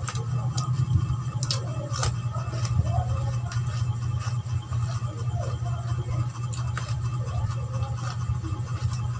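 Close-miked eating sounds: wet chewing, lip smacks and small mouth clicks from someone eating soft rice cakes, over a steady low hum.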